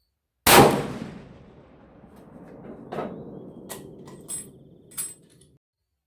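A single rifle shot from a Ruger M77 Guide Gun in .416 Ruger, sudden and loud, ringing out over a second or more. A few sharp metallic clicks follow, some with a high ring.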